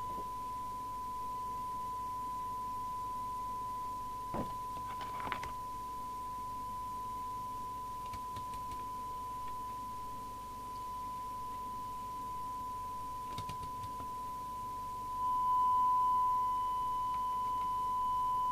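Steady single-pitch test tone from an FM CB receiver's audio, the set demodulating a tone-modulated test signal while its SINAD sensitivity is measured. The tone steps up louder about three-quarters of the way through, and a few light clicks come through over it.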